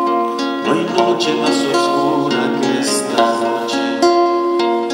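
Two acoustic guitars, one a nylon-string classical guitar, playing an instrumental passage together: plucked melody notes over chords.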